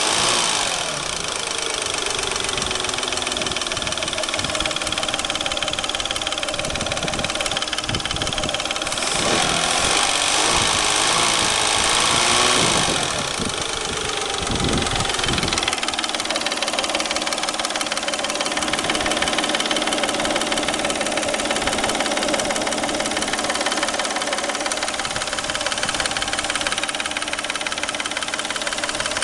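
Peugeot 607's 3.0 V6 engine running with a knock that the owner places in the timing-belt area. The revs drop back about a second in, are raised and let fall again from about nine to fifteen seconds, then settle to a steady idle.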